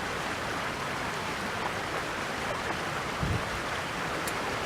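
Steady rushing of stream water, an even wash of sound.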